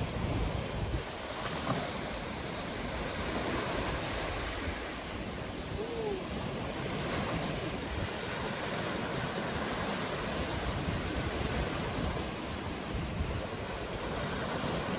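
Small sea waves breaking and washing up the shore in a steady surf noise, with wind rumbling on the microphone.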